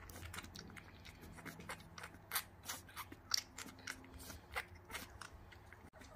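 A two-week-old Finnish Lapphund puppy suckling at a feeding bottle: irregular sucking clicks and smacks, several a second.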